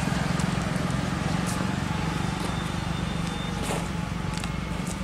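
Footsteps on a paved road, heard as scattered short clicks, over a steady low rumble of road traffic that slowly fades.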